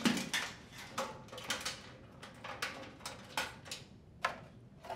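Handling noise of wires and their terminals being pulled through the holes in a dryer's top panel: a dozen or so irregular light clicks and rustles.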